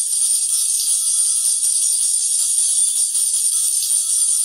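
Homemade record lathe cutting a groove: its tweeter-driven cutting head gives off a thin, tinny version of the music being cut, all treble with no bass, steady throughout.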